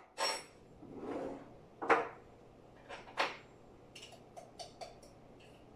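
Kitchen clatter of things handled at a counter while coffee is made: a handful of separate knocks and clunks, the loudest about two seconds in, then a quick run of light clicks around four seconds in.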